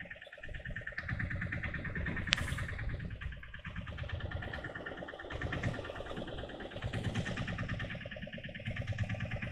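Large saltwater spinning reel being cranked against a hooked fish, its gears and line roller making a fast, even clicking whir, over a low rumble of wind and sea.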